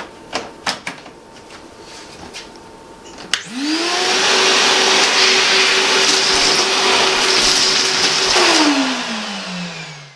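A few clicks and knocks, then a Stomer wet-and-dry vacuum cleaner switches on about three seconds in, its motor spinning up to a steady pitch with loud rushing air. It runs for about five seconds, then is switched off and winds down with a falling whine.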